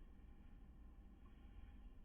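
Near silence: a faint steady low hum of room tone.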